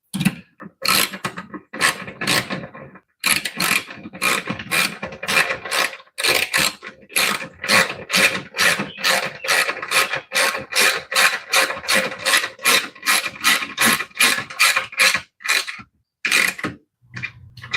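Ratchet wrench being worked on a bolt: a few scattered clicks, then a long, even run of ratcheting strokes about three a second, stopping near the end.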